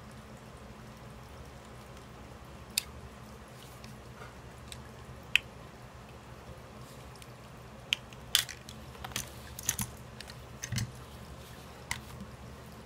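Hard plastic clicking and snapping as a blade pries open the snap-fit case of a selfie stick's LED light. There are single sharp clicks at first, then a quicker run of them over the last few seconds as the cover comes off.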